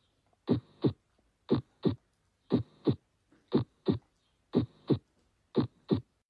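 Heart sounds from a recorded heartbeat: steady pairs of beats, the first and second heart sounds, about one pair a second, six pairs in all.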